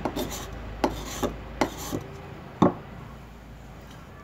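Knife blade scraped down a bamboo cane under pressure, shaving the inner layer into fine tinder: about seven short scraping strokes, roughly two a second, the last and loudest about two and a half seconds in, then the scraping stops.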